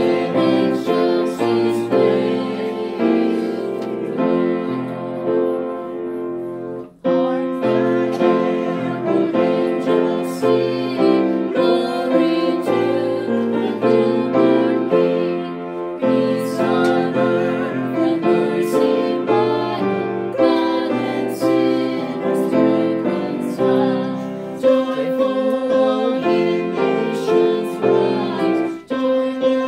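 Upright piano accompaniment with a woman singing a song, with a brief pause between phrases about seven seconds in and again near the end.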